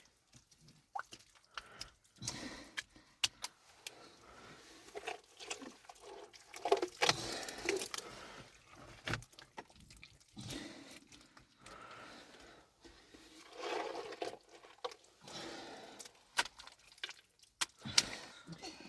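Irregular knocks, clinks and scrapes of objects being handled, scattered throughout.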